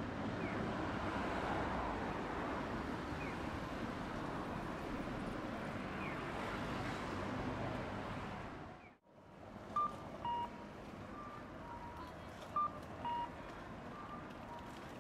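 Road traffic passing at a city intersection, a steady hum of cars. About nine seconds in it gives way to a pedestrian crossing's audible signal: a two-note 'cuckoo' chime, a higher tone then a lower one, repeating about every second and a half, with fainter answering chimes between.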